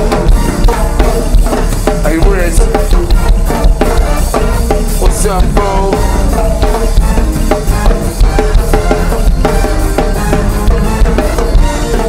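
Music with a steady drum-kit beat.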